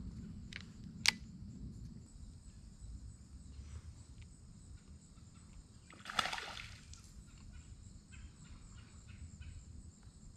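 Creekside outdoor sound with crickets chirping steadily, one sharp click about a second in, and a brief splash on the water about six seconds in.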